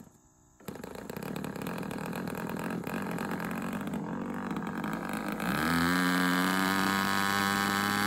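Model airplane's Super Tigre Bluehead two-stroke glow engine running roughly at low throttle. About five and a half seconds in it is throttled up, rising in pitch to a steady, louder high-speed run.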